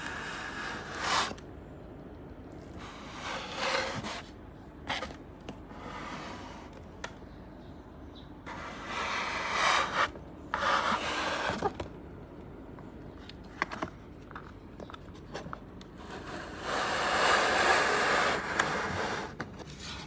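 Cardboard toy boxes with clear plastic windows being handled and slid on a tabletop: rubbing and scraping swishes, two longer ones in the middle and near the end, with light taps and clicks in between.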